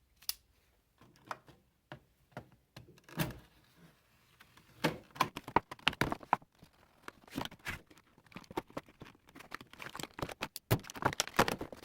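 Handling noise from a set of chrome flex-head ratchets and their foam-molded packaging: irregular metallic clicks, knocks and rustles, sparse at first and coming thick and fast from about halfway through.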